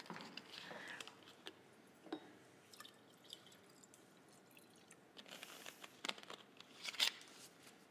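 Water poured faintly from a plastic bottle into a drinking glass, with light clicks and knocks as the bottle and glass are handled; a sharper knock comes near the end.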